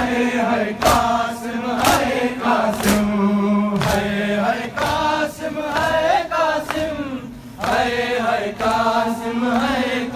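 A noha lament chanted by massed male voices, led through a microphone, with sharp chest-beating (matam) strokes about once a second.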